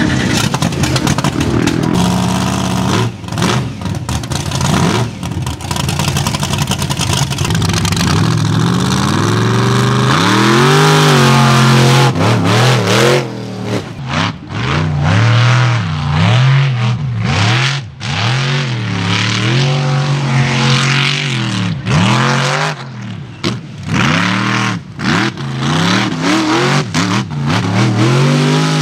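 Mega truck's supercharged big-block V8 running, then revved up and down again and again from about ten seconds in.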